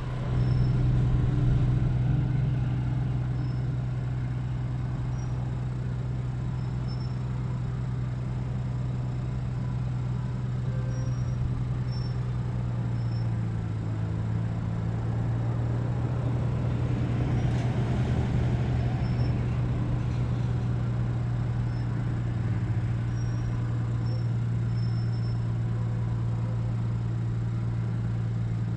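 An engine running steadily with a constant low hum. A rushing noise swells and fades partway through, and faint short high chirps come now and then.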